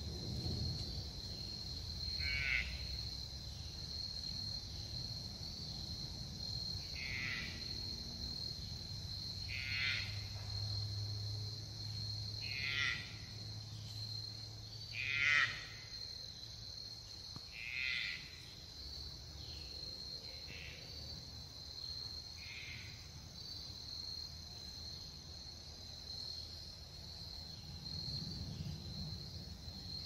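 Steady high drone of insects with a short, pulsed animal call repeated every two to five seconds, the loudest one about halfway through.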